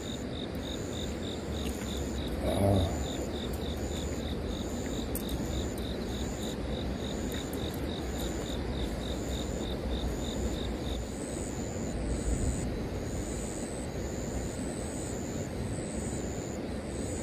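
Insects chirping in steady, evenly spaced pulses, one high and fast at about three chirps a second that stops partway through, another higher and slower that carries on, over a steady low rumble.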